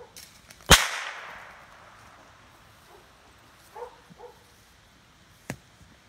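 A single loud, sharp bang with an echoing tail that dies away over about a second, then a fainter sharp crack near the end.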